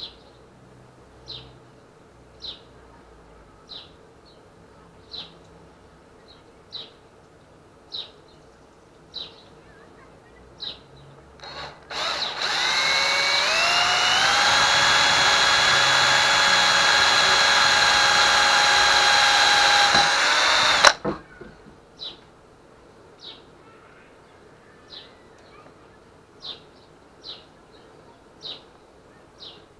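20-volt cordless drill boring through a pine 2x4 for the mold's pin hole: the motor spins up with a rising whine about twelve seconds in, runs steadily for about nine seconds and cuts off suddenly. Before and after it, a short high chirp repeats about once a second.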